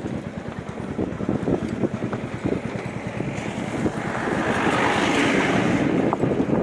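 Motorcycle engine running, with wind buffeting the microphone; the wind noise grows louder about four seconds in and eases near the end.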